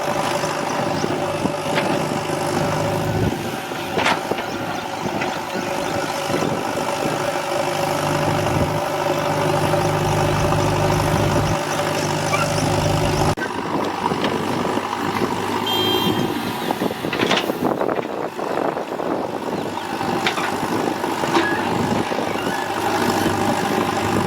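Heavy diesel engine of a JCB 4DX backhoe loader running steadily while loading soil, with a few clanks. The engine note changes abruptly about thirteen seconds in.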